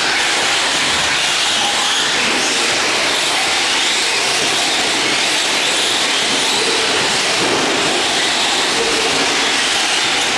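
Radio-controlled racing trucks running on the track: a steady, even rush of motor and tyre noise with no breaks.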